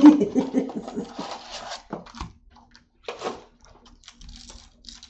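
Foil trading-card pack wrapper crinkling and being torn open by hand, in a few short bursts of rustling.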